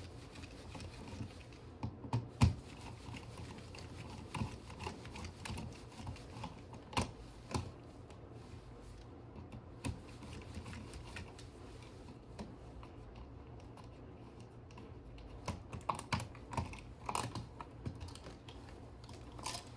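Scattered light clicks and taps of a screwdriver working the screws out of a light switch and its plastic wall plate, with a few quick clusters of clicks, over a faint steady low hum.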